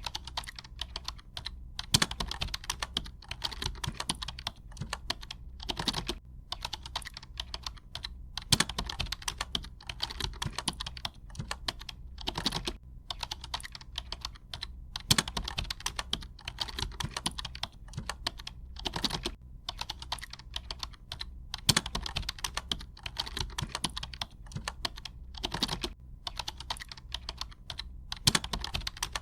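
Typing on a computer keyboard: runs of fast key clicks with brief pauses between them, and a louder single keystroke every few seconds.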